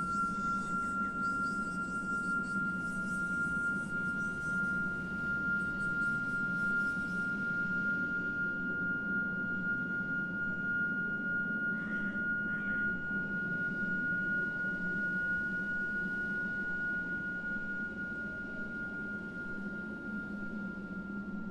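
Experimental ambient soundtrack: a steady, high pure tone held over a low drone. An airy hiss fades out after about seven seconds, and two brief soft sounds come about twelve seconds in.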